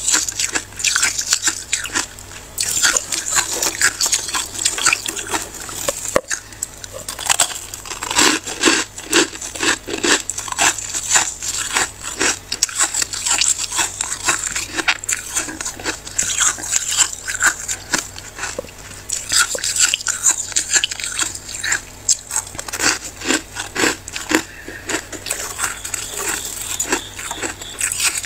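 Freezer frost crunching in rapid, irregular crunches, many a second, as the packed frost is broken up.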